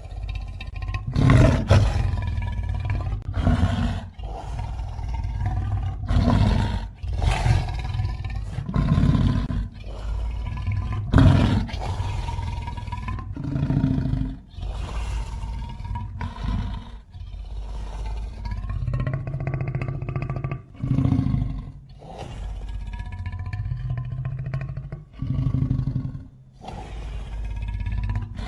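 Custom monster roar effect, layered from giant-ape, lion, grizzly bear and kaiju roars. It sounds as about a dozen deep roars, one after another with short breaks between them.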